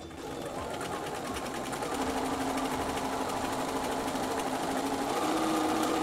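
Bernina sewing machine stitching a seam through cotton quilting fabric: the motor hums and the needle ticks rapidly. It starts at the beginning, gets louder over the first couple of seconds as it picks up speed, then runs steadily.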